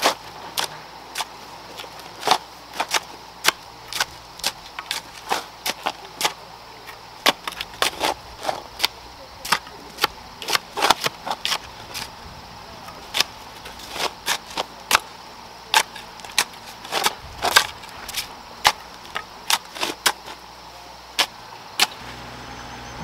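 Hoes chopping into stony soil: an irregular run of sharp strikes, one to three a second, from two people working at once.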